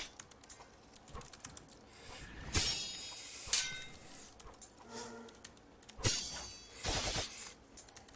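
Heavy breathing close to the microphone, heavily compressed: a run of short noisy breaths about a second apart, one near the middle carrying a voiced tone.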